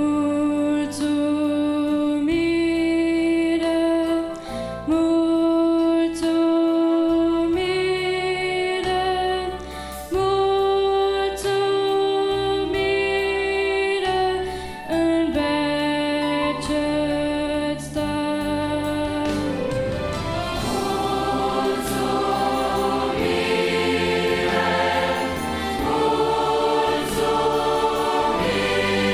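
Large choir of children and adults singing a Romanian hymn in long held chords, phrase by phrase with short breaths between. The sound grows fuller and brighter in the last third.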